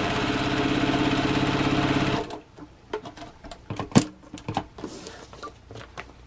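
Domestic sewing machine stitching a seam through fabric and paper foundation at a steady fast rate, stopping abruptly about two seconds in. Then scattered clicks and rustling as the paper-backed piece is handled, with one sharp click about four seconds in.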